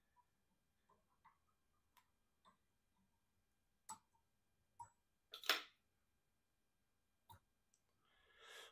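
Near silence broken by a handful of faint, sparse clicks and ticks from small fly-tying tools being worked at the vise while a whip finish is tied, the loudest a short scrape about halfway through.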